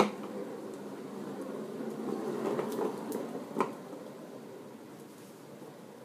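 Small plastic wheels of a ride-on toy rolling over a bare concrete floor, growing louder two to three seconds in and then fading. A sharp knock comes at the start and another after about three and a half seconds.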